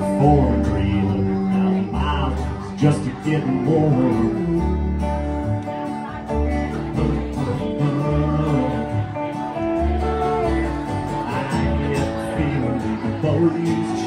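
Background music: a country song with guitar over a steady bass beat, between sung lines.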